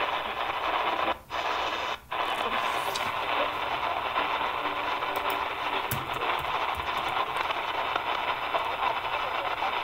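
Tecsun PL-330 shortwave receiver playing a weak, unidentified broadcast buried in static and hiss. The audio cuts out briefly twice near the start as the radio is tuned to another frequency.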